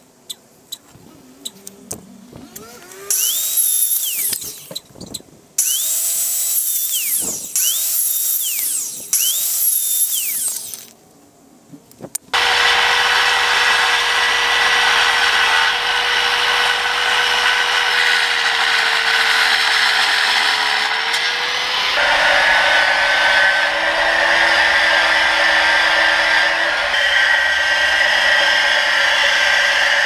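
Handheld electric circular saw cutting pine boards. It makes several short cuts, its motor speeding up and slowing around each one, then runs steadily and loudly through a long stretch. Its tone shifts lower about two-thirds of the way in.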